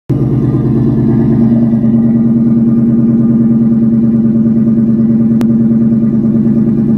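2004 Ford Mustang GT's 4.6-litre two-valve V8 idling steadily through factory manifolds, an off-road X-pipe and Flowmaster 40 Series mufflers, heard close at the tailpipe. A single brief click sounds about five seconds in.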